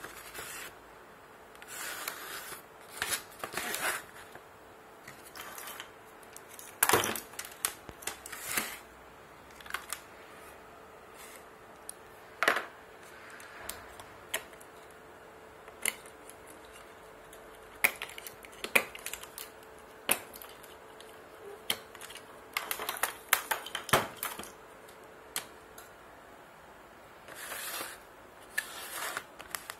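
Handling noise as a split-AC control board, its wires and its cardboard box are moved about on a wooden table: scattered clicks, taps and short rustles, with several sharp knocks. A faint steady hum runs under them and stops near the end.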